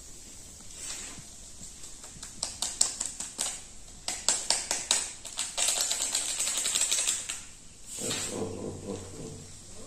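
ENO fruit-salt sachet being tapped and crinkled as the powder is shaken into a glass of water: a quick run of sharp clicks in two spells, then about two seconds of hiss. A brief voice-like sound comes near the end.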